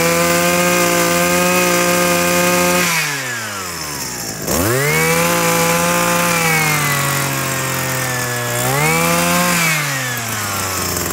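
Makita 232 brush cutter's 23 cc engine, freshly started, running at high throttle. About three seconds in the throttle is let off and the revs fall toward idle, then it revs back up sharply about a second later, rises higher again briefly around nine seconds, and eases back down near the end.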